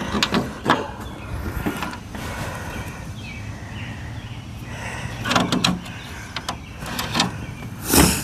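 Scattered knocks and scrapes of hand work on a sheet-steel car hood while a hood scoop is being screwed on, with louder clunks about five and eight seconds in.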